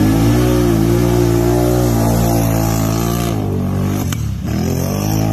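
Can-Am ATV engine revving hard while it ploughs through swamp mud. The revs hold high, drop sharply a little after four seconds in, then climb back up.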